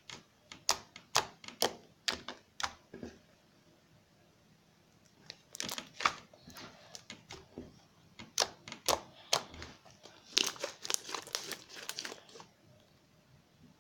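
Homemade glue slime, made with shaving foam, being squeezed and stretched by hand, giving crackling pops and squelches in irregular clusters, with a pause of about two seconds in the middle.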